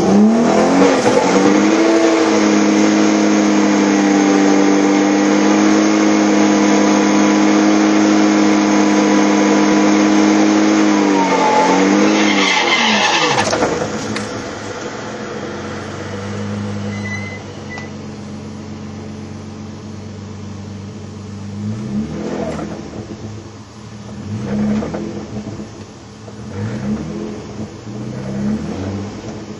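Nissan 300ZX's twin-turbo 3.0-litre V6 heard from inside the cabin: held loud at one steady high engine speed for about thirteen seconds, then dropping suddenly to a quieter, lower running note. Near the end it is revved in several short blips that rise and fall about every two seconds.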